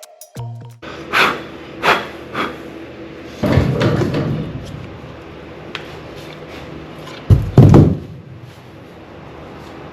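Knocks and thuds of wooden drawer-slide parts being handled: a few light knocks in the first seconds, a louder cluster of knocking about three and a half seconds in, and two heavy thumps near the eight-second mark.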